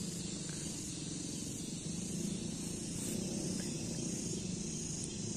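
Steady outdoor background noise with a low hum and a faint high hiss, and no distinct event.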